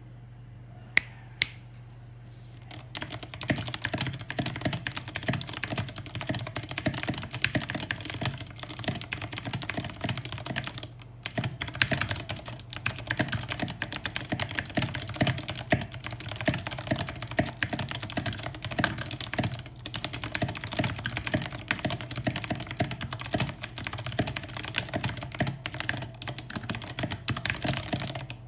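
Typing on a Vortex VX5 mechanical keyboard with Outemu Brown tactile switches lubed with Tribosys 3203, PBT keycaps and an EVA foam dampener. After two single key clicks about a second in, a fast, continuous clatter of keystrokes starts about three seconds in.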